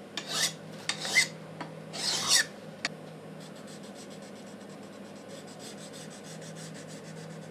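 Hand file scraping along the edge of a freshly milled metal bar: three strokes in the first two and a half seconds. After that comes only faint, fine scratching on the bar.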